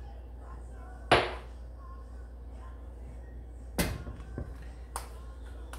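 Kitchen containers knocked and handled on a counter while seasoning: one sharp knock about a second in, then a few lighter clicks and knocks in the second half, as spice bottles and a plastic bowl are picked up, opened and set down.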